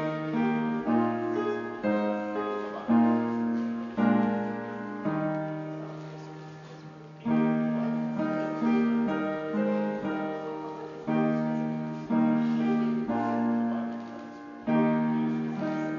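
Slow piano music: chords struck every second or two and left to ring and fade, with one long held chord fading away near the middle.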